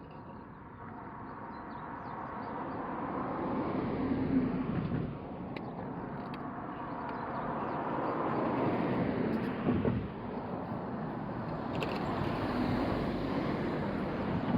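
Road traffic: several vehicles pass one after another, each swelling up and then dropping away, with the loudest passes about four and a half and nearly ten seconds in.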